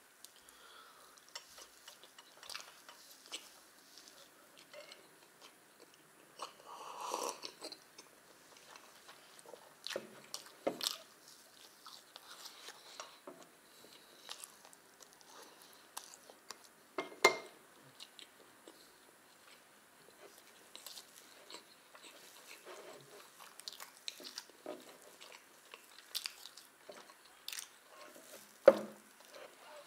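Close-up chewing and biting of soft pancakes and porous milk chocolate, with wet mouth sounds and small clicks scattered throughout. Two sharper, louder knocks stand out, one about halfway through and one near the end.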